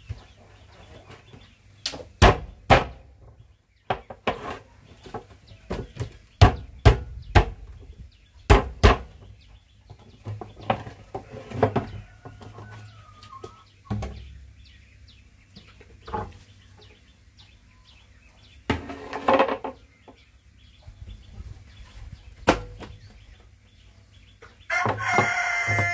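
Sharp hollow plastic knocks and clunks as a large plastic water jug and a plastic feeder pan are handled and fitted together, most of them in the first nine seconds. Chickens cluck and a rooster crows in the background, most loudly near the end.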